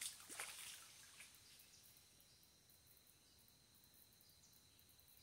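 A baited hand-line's hook and sinker landing in the river with a small splash and a few short watery strokes in the first second. A faint, steady high-pitched hum follows, likely insects.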